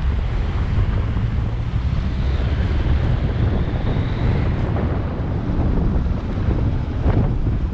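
Wind rumbling steadily on a cyclist's camera microphone while riding, over road traffic noise.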